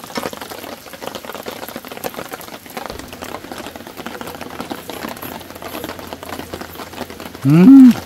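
Pork belly sizzling and crackling in its fat on a hot cast-iron griddle. Near the end a man gives one loud 'mmm' of enjoyment while chewing, rising and then falling in pitch.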